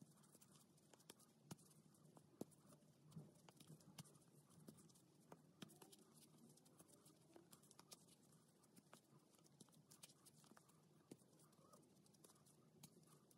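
Near silence, with faint, irregular small clicks and rustles of a crochet hook working chunky t-shirt yarn through single crochet stitches.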